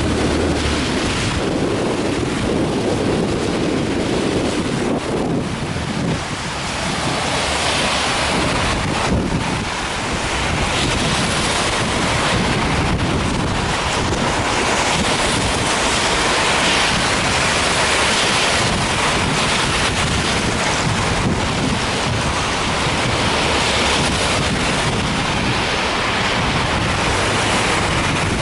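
Strong wind blowing in gusts and buffeting the microphone, a steady loud rushing that swells and eases.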